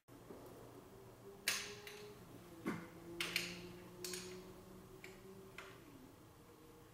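Several faint, sharp clicks and taps, about six spread irregularly over a few seconds, over a low steady hum.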